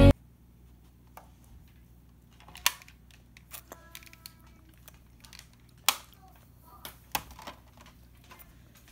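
Music cuts off at the start. Then scattered light clicks and knocks, typical of a spoon and bowl being handled, with three louder knocks and a brief pitched sound about four seconds in.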